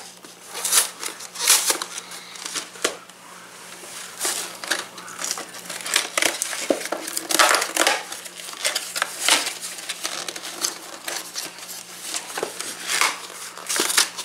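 A cardboard kit box being opened by hand and its paper liner and packets handled: irregular crinkling and crumpling of card, paper and plastic packaging.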